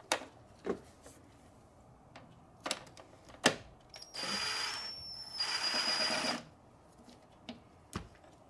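Small cordless power tool running twice, about a second each time, with a steady high whine. Around it come a few sharp clicks and knocks of tools against metal.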